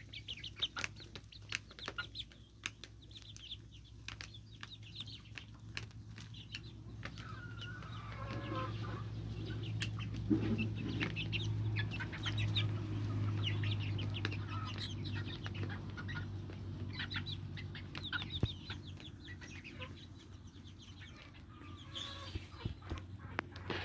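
Young chickens clucking and peeping as they feed, with many sharp taps of beaks pecking. A low steady hum runs underneath and grows louder in the middle.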